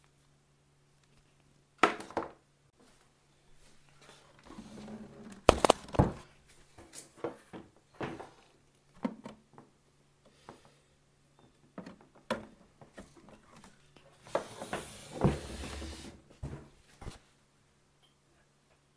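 Handling noise from a coiled power cable being unwrapped and plugged into the back of a portable power station: a string of separate clicks and knocks, with a couple of seconds of rustling about two-thirds of the way through. A faint steady low hum runs underneath.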